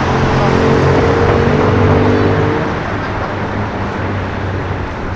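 A car engine running at low, steady revs, growing quieter about halfway through as it moves off.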